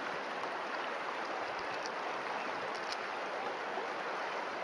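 River water flowing past, a steady even rushing.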